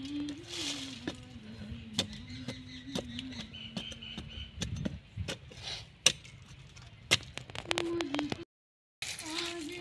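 A rambha (narrow-bladed hand spade) chopping and scraping into dry, stony soil around a tree's root ball, giving irregular sharp strikes about once a second. A faint steady droning tone runs underneath. The sound cuts out briefly near the end.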